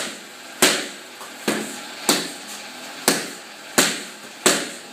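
Boxing gloves striking hand-held focus mitts during pad work: six sharp smacks in an uneven run, a little under a second apart, each with a short room echo.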